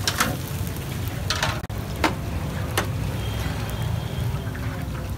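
A metal spatula scraping and clinking a few times on a perforated metal draining tray as deep-fried fish is moved onto it. Underneath is the steady low roar of the stall's burner and the sizzle of frying oil.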